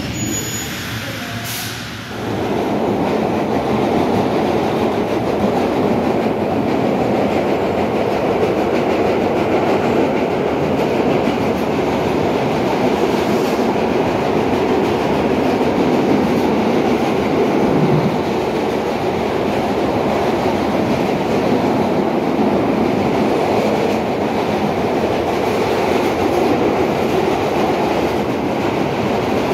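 Vintage R1/R9 subway cars running, heard from inside a car: a steady, loud rumble of wheels and running gear that rises sharply about two seconds in.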